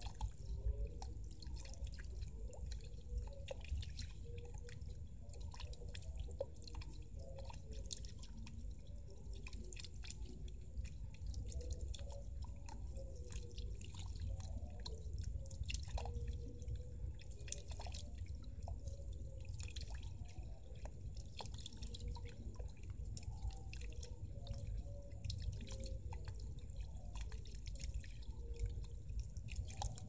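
Water from a small solar-powered fountain jet splashing and dripping back into a shallow pond: a continuous, steady run of small droplet plinks.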